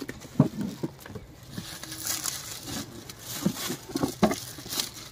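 Metallic foil gift wrap crinkling and tearing as it is pulled off a cardboard box, with scattered crackles and a few sharp knocks as the box is handled.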